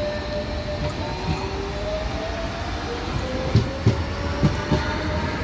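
Electric suburban commuter train pulling out of the station: a steady motor whine that slowly rises in pitch over a low rumble. From about three and a half seconds in, the wheels clack over the rail joints.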